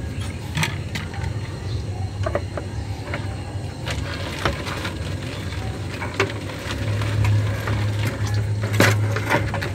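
Gasoline sloshing in a clear fuel bottle as it is handled, with scattered clicks and knocks over a steady low hum that grows louder about seven seconds in.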